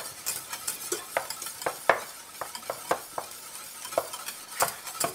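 Cooking utensils stirring in pans on a stovetop, with irregular sharp taps and scrapes of utensil against metal over a steady faint sizzle of food frying in a skillet.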